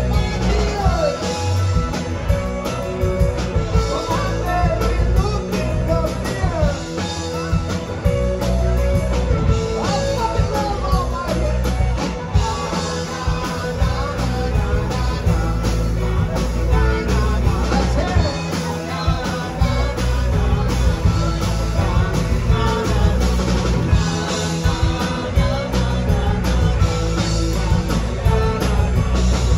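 Live rock band playing loudly through a PA: electric guitars over a drum kit and bass, the music running on without a break.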